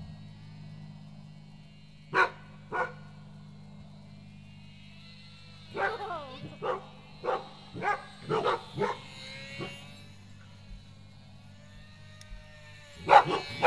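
Dogs barking: two barks about two seconds in, then a quick run of barks and yips from about six to nine seconds, over a steady low hum.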